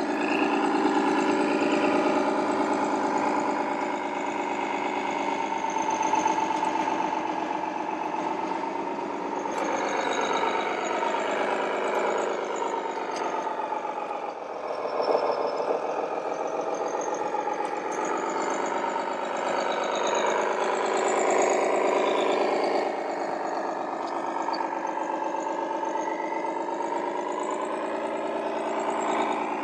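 Radio-controlled model coach running a simulated diesel engine sound, a steady engine note whose pitch wavers as it drives, dipping and rising again about halfway through.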